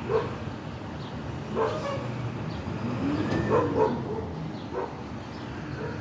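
A dog barks several times in short, sharp calls over the steady low rumble of a garbage truck's engine.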